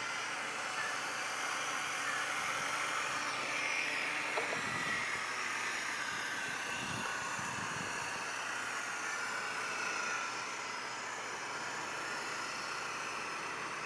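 Motor of a 1/32-scale radio-controlled model of the RCMP patrol boat Laurier running under way: a steady whirring hiss with faint shifting tones, a little quieter after about ten seconds.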